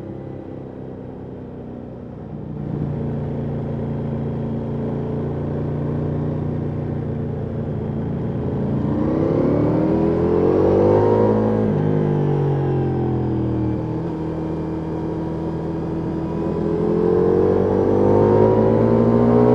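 Ducati Multistrada V4S's V4 engine through an Akrapovic exhaust, recorded from a microphone in the rider's backpack. It picks up a few seconds in, runs steadily, then climbs in revs through a gear, drops back as the bike slows, and climbs again near the end.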